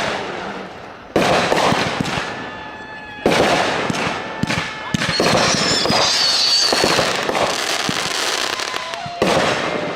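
Consumer fireworks going off: sharp bangs about a second in and again about three seconds in, with dense crackling between them and whistling tones, one falling in pitch near the end.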